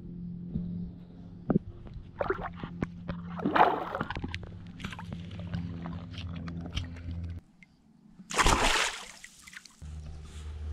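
Water splashing and sloshing as a caught peacock bass is handled at the side of a kayak, over a steady low hum. There are two louder splashes, about three and a half and eight and a half seconds in.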